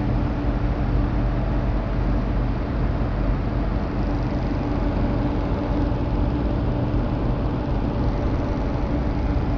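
Model Stirling engine driving a small tracked tank, running with a steady, continuous mechanical noise and a low hum.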